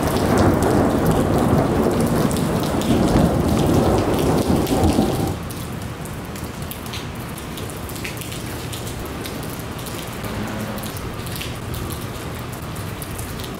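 Thunder rumbling over heavy rain for about five seconds, cutting off suddenly, followed by steady rain.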